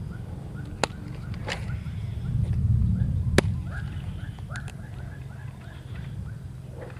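A baitcasting rod being cast and its reel worked: a swish and two sharp clicks about two and a half seconds apart, over a steady low rumble, with small birds chirping faintly.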